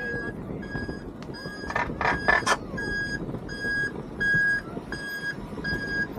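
A vehicle's reversing alarm beeping steadily, about three beeps every two seconds, over a low crowd murmur. A brief rattle of three short noisy bursts comes about two seconds in.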